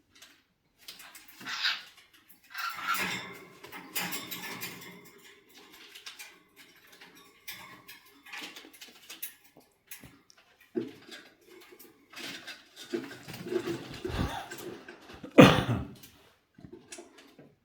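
Pet cockatiels making irregular low clucking and squeaking sounds, typical of a mating pair, with scattered rustling clicks and one loud burst about two seconds before the end.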